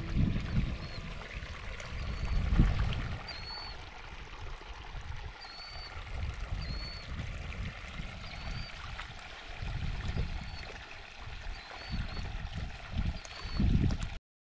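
Shallow water trickling over rocks and a small stick dam at a spring's outflow, with irregular gusts of wind rumbling on the microphone. A small bird repeats a short high chirp about once a second. The sound cuts off suddenly near the end.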